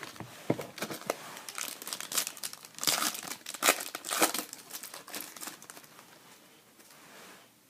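A 2012 Panini Gridiron football trading-card pack wrapper being torn open and crinkled: a dense run of crackles, loudest around the middle, dying away over the last two seconds.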